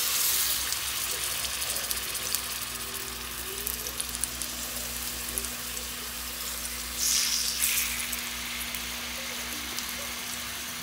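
Rub-coated pork pieces frying in hot oil in a cast iron skillet: a steady sizzle with fine crackling. The sizzle surges right at the start and again about seven seconds in, as fresh pieces are laid into the oil.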